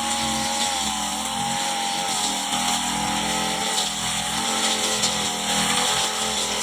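Petrol brush cutter running steadily while cutting grass, its engine pitch wavering slightly.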